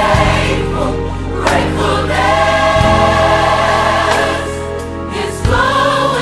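Gospel choir singing long held chords over instrumental backing with a steady bass line.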